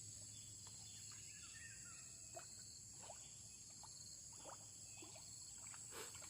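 Faint riverside jungle ambience: a steady high-pitched drone of insects, with a scattered handful of brief chirps.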